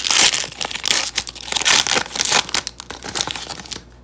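Foil wrapper of a Panini Prestige football card pack crinkling and tearing as it is pulled open, in quick irregular bursts that stop near the end.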